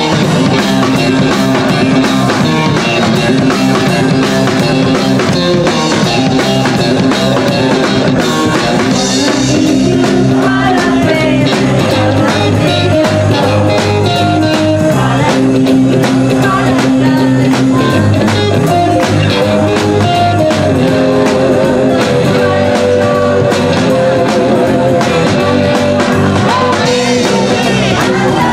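Live rock'n'roll band playing loudly with drum kit, guitar and upright bass, and a woman singing into the microphone near the end.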